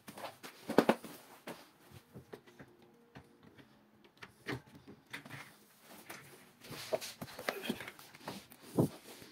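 Scattered knocks and clicks from handling the parts of a sliding wardrobe door, its frame profile and runners. The loudest knocks come about a second in and near the end.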